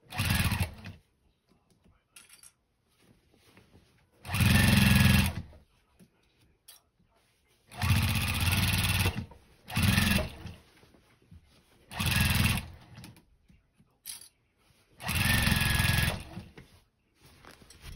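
Sewing machine stitching through thick layers of denim in short stop-start runs, about six bursts of half a second to a second and a half each with pauses between.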